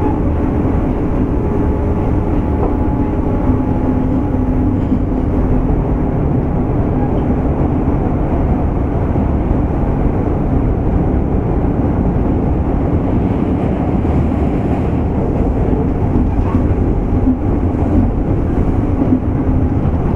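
Running noise of a JR West 201 series chopper-controlled electric train, heard from motor car MoHa 200-247: a steady low rumble of wheels on rail and traction equipment, with faint steady tones, holding an even speed.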